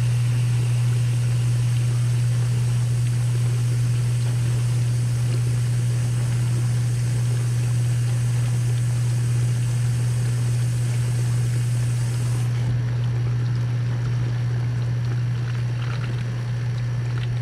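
Newly replaced wash motor and circulation pump of a KitchenAid KDTE104ESS2 dishwasher running steadily with a low hum, water rushing and spraying inside the tub. The pump is circulating water again, the sign that the repair has worked.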